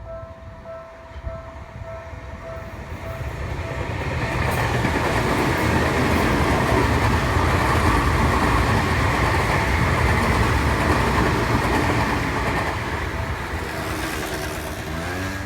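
Seibu Railway train passing over a level crossing. Its rumble and wheel noise swell about four seconds in, stay loud until about twelve seconds, then ease off.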